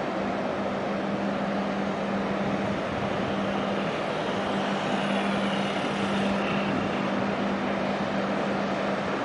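Ultra-large container ship passing close at harbour speed: a steady low hum from its machinery over a constant rushing wash.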